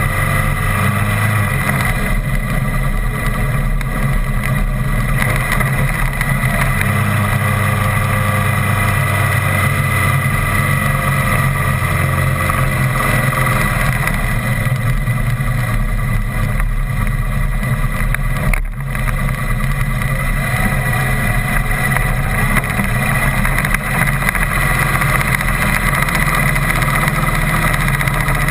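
Vehicle engine running steadily at road speed, with wind and tyre noise. The low engine note shifts a few times in the first half, and there is a brief dip about two-thirds of the way through.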